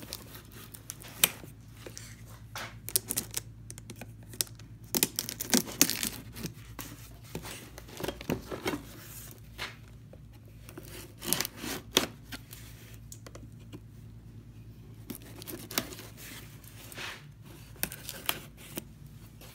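A pocket knife slitting the packing tape and seams of a cardboard box, with the tape tearing and the cardboard scraping in short, irregular strokes.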